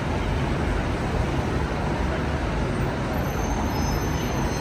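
Busy city street ambience: a steady, low rumble of road traffic with no single event standing out.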